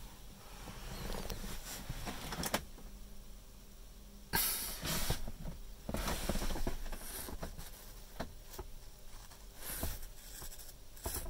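Irregular bursts of rustling, hissing noise heard from inside a car cabin, over a faint low hum; the loudest burst comes a little after four seconds in.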